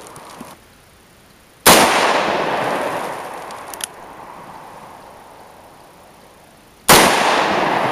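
Two gunshots about five seconds apart, each a sharp crack followed by a long echo that fades over a second or more.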